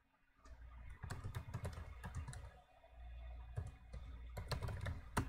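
Typing on a computer keyboard: two quick runs of keystrokes with a short pause between them, and a sharper single click near the end.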